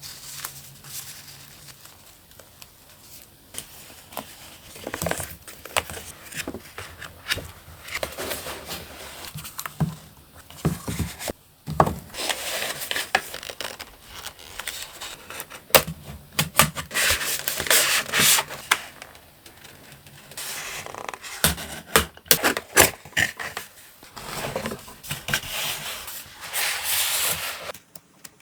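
Hands unboxing and handling packaging and paper stationery: irregular rustling, rubbing and scraping, with sharp taps and clicks scattered throughout.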